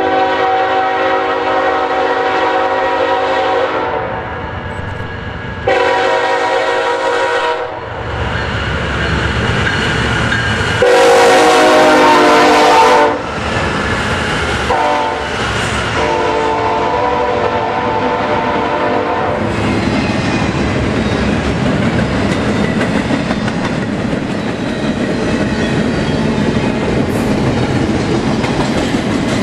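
BNSF train's locomotive horn sounding a run of blasts for a grade crossing, ending short then long, the third blast the loudest. After that the train rolls past with a steady rumble and the clickety-clack of wheels on the rails.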